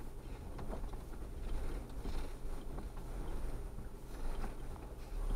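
Off-road vehicle crawling slowly over a rocky, snow-covered trail: a steady low engine and drivetrain rumble with scattered knocks, creaks and rattles as it rocks over the rough ground.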